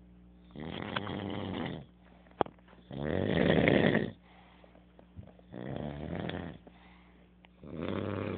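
A man snoring in a steady rhythm: four snores about two and a half seconds apart, the second the loudest. A single sharp click falls between the first two snores.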